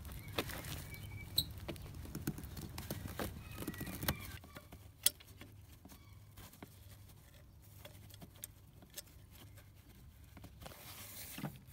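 Faint, scattered clicks and scrapes of hand work at a diesel injector's leak-off connection: side cutters on a small metal hose clip and a rubber leak-off hose being worked off its nipple. There is one sharper click about five seconds in.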